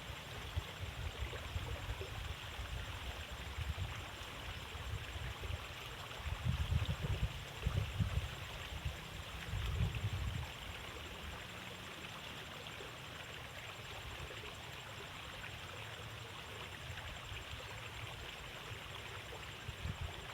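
Water flowing steadily along a narrow irrigation ditch, a continuous trickling rush. Uneven low rumbles sit under it for about the first ten seconds, then stop.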